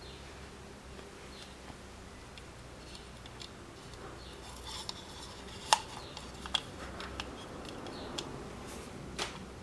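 Small plastic clicks and taps as a spin centre cap and its ring are handled and pressed into an alloy wheel's centre hole, with the sharpest click a little past halfway.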